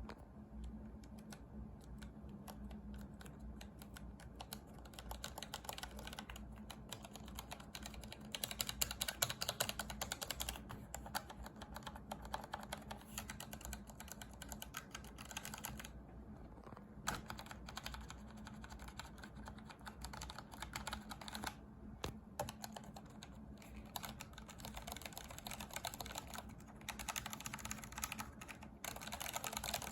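Typing on a Logitech G513 mechanical keyboard with its keycaps removed: rapid clicks of the bare switches, in a fast run of strokes in the first third and with short pauses now and then. A faint steady hum lies underneath.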